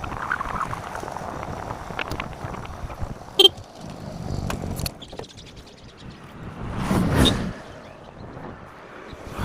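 Road vehicle noise, with a louder swell rising and falling about seven seconds in, like a vehicle going past, and a sharp click about three and a half seconds in.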